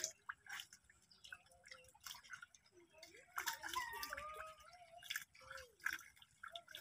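Wet splashes, drips and squelches of hands and feet working through mud and shallow water, in short irregular ticks and slaps.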